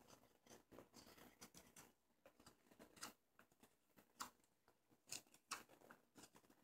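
Faint, short scraping cuts of a carving knife shaving green American sycamore as a spoon is whittled, coming irregularly every half second to a second.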